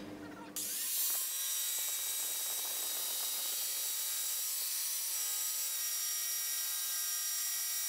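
TACKlife TJS02A corded barrel-grip jigsaw starting about half a second in and running steadily, its motor whine over the rasp of the blade as it makes a 45-degree bevel cut through a wooden board.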